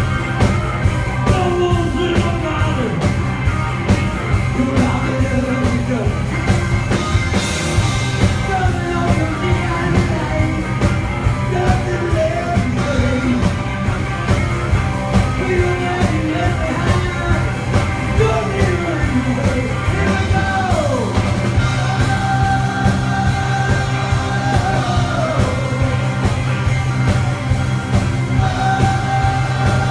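Live electric blues-rock band: two electric guitars playing lead lines with bends over bass and drums. About two-thirds of the way in there is a long held high note that drops away in a slide.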